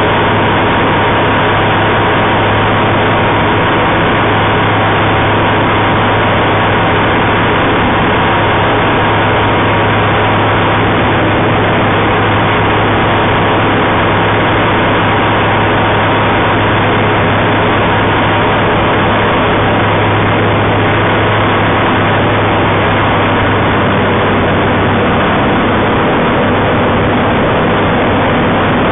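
Homebuilt Kitfox-type taildragger's engine and propeller running steadily in flight, heard loud from inside the cockpit.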